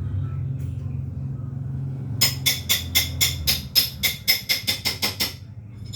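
A quick run of about fourteen ringing metal strikes over some three seconds, starting about two seconds in, over a low steady hum.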